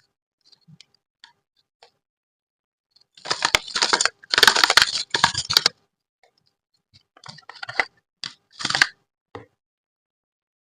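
Slime being worked by hand, crackling and popping: a dense run of pops a few seconds in, then scattered single pops.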